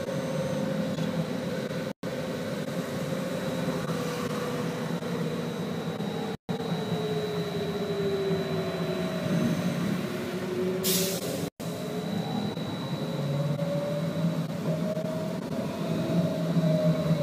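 BKM 321 trolleybus running, heard from inside the passenger cabin: the traction motor's whine sinks in pitch and then rises again over a steady low rumble. A short hiss comes about eleven seconds in.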